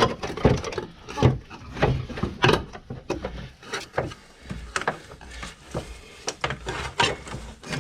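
Irregular knocks, clunks and rubbing of hard parts being handled while working in a car's engine bay, with about a dozen separate sharp hits at uneven spacing.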